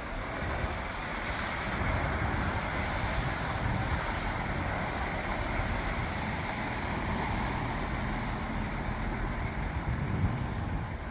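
Class 170 Turbostar diesel multiple unit running through the station: a steady rumble of engine and wheels that builds over the first couple of seconds and then holds.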